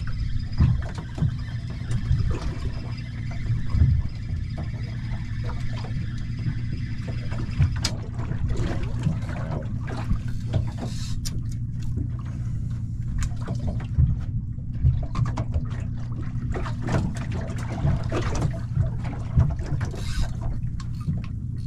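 Water lapping and splashing against the hull of a small boat, with a steady low hum underneath and scattered light knocks and clicks.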